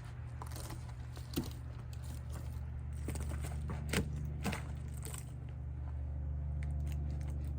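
58cc two-stroke chainsaw idling steadily, with a few sharp crunches and clicks over it.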